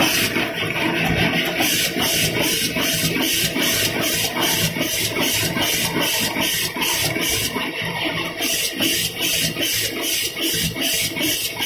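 High-speed V-fold facial tissue and hand towel wrapping machine running, its folding and pushing mechanism cycling in a fast, even rhythm of about three strokes a second over a steady mechanical hiss.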